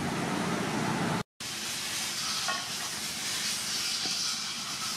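Water sloshing and splashing in a metal basin as bunches of long beans are swished and lifted out while being washed, a steady hissy wash of water noise. It cuts out for an instant just over a second in, then carries on.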